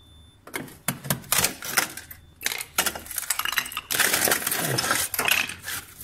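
A flat hand tool scraping, tapping and crunching at ice built up inside a refrigerator, with clicks and knocks on the plastic liner. The scraping is densest about four seconds in. The ice has formed because the defrost drain hole has frozen shut.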